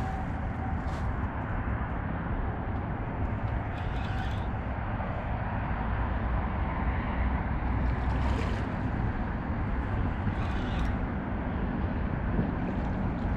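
A steady low rumble, with a few faint brief rustles or scrapes.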